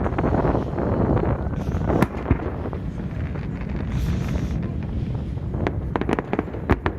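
Fireworks going off, with sharp bangs and crackles around two seconds in and again near the end. Strong blizzard wind is buffeting the microphone throughout.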